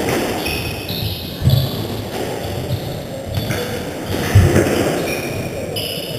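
Squash rally: the ball struck by racquets and hitting the court walls with sharp thuds, the loudest about a second and a half and four and a half seconds in. Players' shoes give short high squeaks on the hardwood floor in between.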